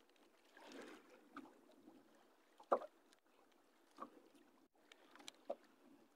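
Mostly quiet: faint water lapping against a small boat, with three soft clicks as a fishing hook is worked out of a caught fish's mouth by hand.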